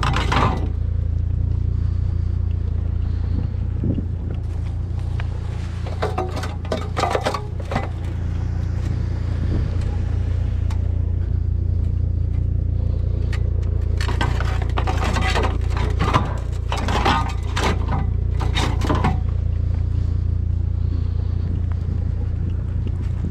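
A vehicle engine running with a steady low hum, with two spells of clattering and scraping, a short one about a quarter of the way in and a longer one past the middle.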